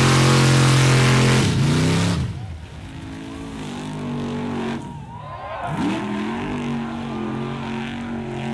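Mud truck engines at high revs. A lifted truck's engine runs loud and steady while it plows through the mud bog, then cuts away about a second and a half in. A quieter pickup engine follows, revving, dropping in pitch around the middle and climbing again.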